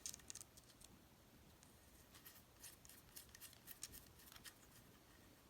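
Faint, irregular small clicks and light scraping from the Sig Sauer Romeo5 red dot sight's turret cap being handled: a few at the start, then a cluster about two to four and a half seconds in.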